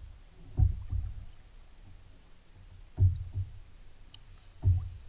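Three dull knocks on the hollow plastic hull of a Trident 13 kayak, spaced a second or two apart.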